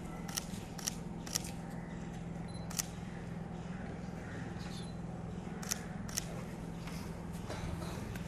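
Scattered sharp camera-shutter clicks, about ten in all, over a steady low electrical hum from the public-address system.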